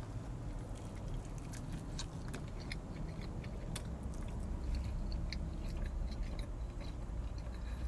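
A man chewing a mouthful of pizza, with many small crunches and clicks from the crust, over a low steady hum.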